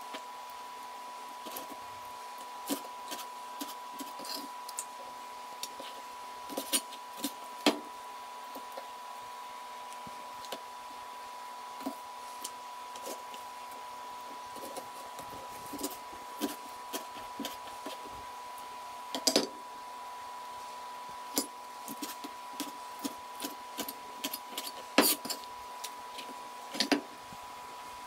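Irregular clicks, knocks and clinks of seafood, utensils and dishes being handled during food preparation, over a steady high-pitched hum.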